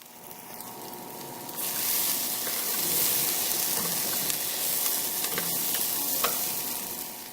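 Garlic, onion and ginger sizzling in hot oil in a pot as they sauté. The sizzle swells over the first second or two, holds steady, and dies down near the end.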